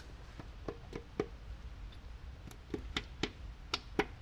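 Light taps on the cap of a BMW S54 connecting rod, knocking its top and bottom to break the fracture-split cap free from the rod. About a dozen sharp taps come in two bursts, each with a short ring, and the last, near the end, is the loudest.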